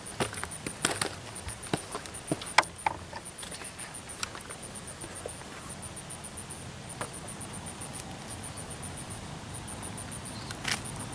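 Outdoor lakeside background with an insect's high pulsing chirp repeating steadily throughout, and scattered light clicks and knocks in the first few seconds.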